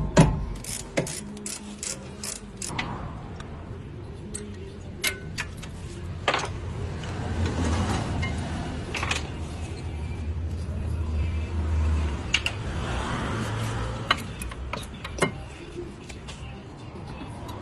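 Brake repair work on a car: scattered clicks and knocks of tools on metal parts, with a low rumble that swells between about 7 and 12 seconds in.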